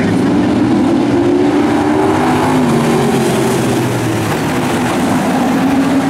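A pack of pro stock dirt-track race cars runs hard through a turn, their V8 engines loud and steady, with several engine tones overlapping and sliding in pitch as the cars pass.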